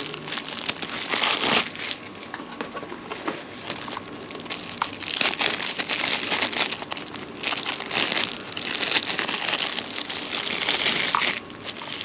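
Clear plastic and bubble-wrap packaging crinkling as a pair of new handlebar grips is pulled out of it by hand, in several surges that stop shortly before the end.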